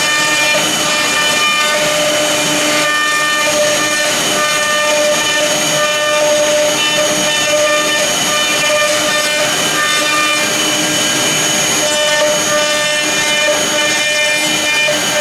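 Blue Elephant ELE2040-2S two-spindle CNC router carving MDF: a steady machine whine with several high tones over the rushing noise of the bit cutting.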